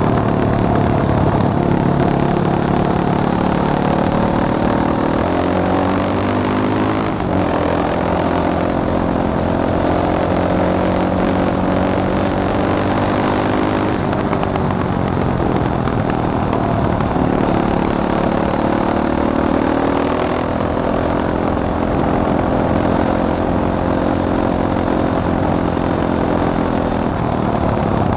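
Fantic Caballero 500 Flat Track's single-cylinder four-stroke engine running under way, its pitch climbing and dropping back several times as it is ridden up through the revs and changes gear.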